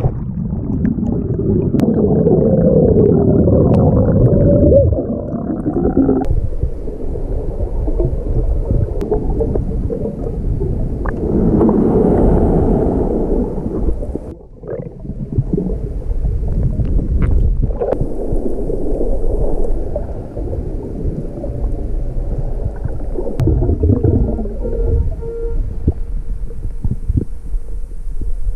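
Muffled underwater rush and bubbling of churning surf, heard through a submerged camera, swelling and easing every several seconds.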